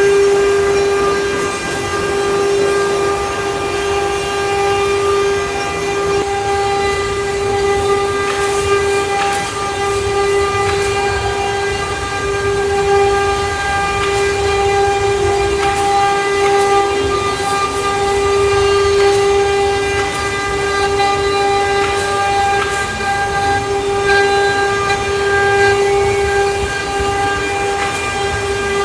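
CNC router spindle running at a steady high-pitched whine while carving wood, with rougher cutting noise and occasional scratchy bits underneath.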